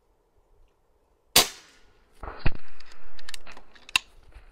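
A .22 pre-charged pneumatic air rifle fires once, with a sharp crack about a second and a half in. About a second later comes a louder, sharp strike followed by a stretch of noise, and another single sharp click near the end.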